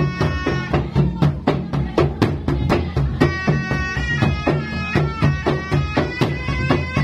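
South Sulawesi gendang music: a puik-puik, a small reed shawm with a flared bell, plays a sustained melody over rapid gendang drumming. About a second in, the pipe falls back for a couple of seconds while the drum strokes go on.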